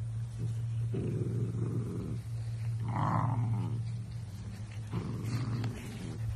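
Dachshund puppy growling in a long low rumble that swells in rough bouts as it wrestles a large empty plastic water jug, with a few knocks and clicks of the plastic near the end.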